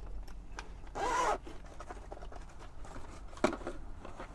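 A zipper pulled once in a short stroke about a second in, followed by a single sharp click a little later.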